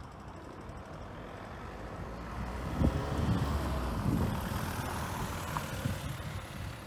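Road traffic on a city street: cars driving past, the noise growing louder from about two seconds in.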